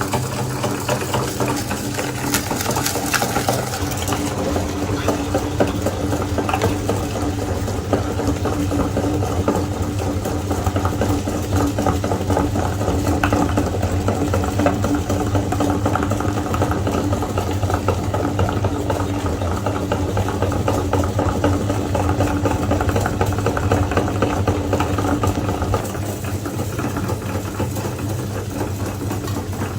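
Electric meat grinder running steadily, its motor humming with a dense, fine rattle as food is ground. About 26 seconds in, one tone in the hum stops and the sound gets slightly quieter.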